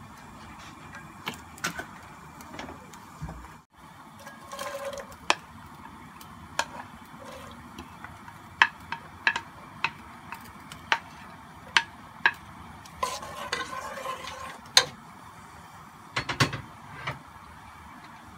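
Chopped onions frying in hot oil in a pot: a low sizzling hiss with many sharp clicks and taps of a spatula against the pot as the onions are put in and stirred.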